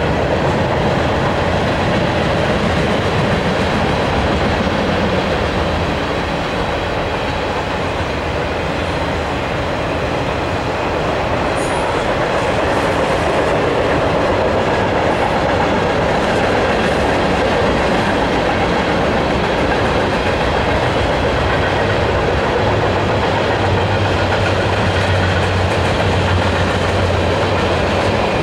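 Freight train cars rolling past: a steady rumble and clatter of steel wheels on the rails.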